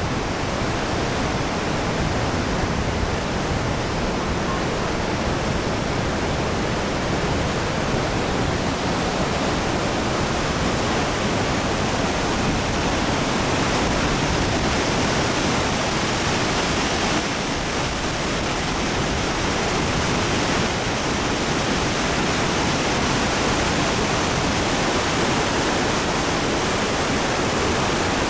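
Iguazu Falls and the swollen Iguazu River: a steady, dense rush of water pouring over the falls and churning below, without a break.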